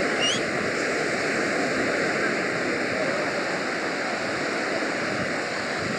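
Steady rush of sea surf washing over a shallow sandy shore, with one short rising chirp just after the start.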